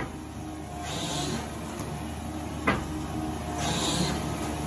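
Truck engine running steadily during a pull of stuck 1000 kcmil copper cable out of an underground vault. Two sharp knocks come about two and a half seconds apart, with short bursts of hiss between them.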